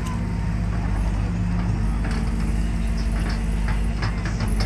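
Diesel engine of a JCB tracked excavator running steadily under load as the boom swings out and reaches to dig. A few short knocks come in the second half.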